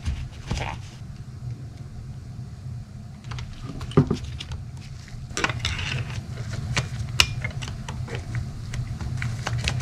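Hand-work on a carburetor being dismantled: small metal clicks, clinks and scraping as the carburetor body and hand tools are handled on a towel-covered workbench, with a sharp knock about four seconds in and a stretch of scraping a little after. A steady low hum sits underneath.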